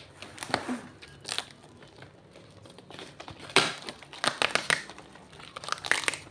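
Packaging crinkling and tearing as a boxed gift is unwrapped, in irregular crackles that are loudest about three and a half seconds in and again around four and a half seconds.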